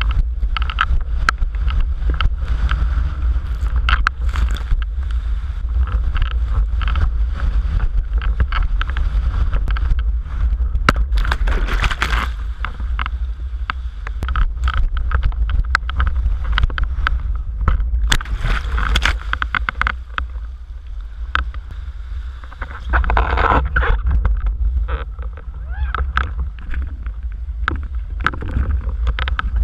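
Wind buffeting the microphone of a windsurf rig's mounted action camera as a low, steady rumble, with frequent splashes and slaps of spray and chop against the board and sail while sailing fast; several heavier splashes along the way.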